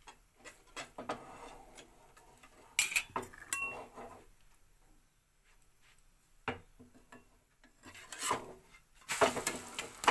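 Paratha being handled on a tawa and pressed with a metal spatula: scraping, rubbing and clinking on the griddle, in separate strokes, louder a few seconds in and again near the end.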